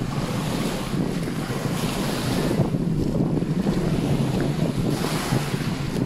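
Small Baltic Sea waves washing up onto a sandy shore, the hiss of the surf swelling and fading every couple of seconds, under steady wind buffeting the microphone.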